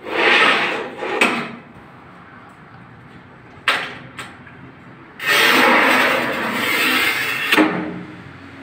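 Manual rail tile cutter's scoring wheel run along a large ceramic tile: a short scraping stroke at the start, a sharp click near the middle, then one long scraping score of about two and a half seconds ending in a sharp knock.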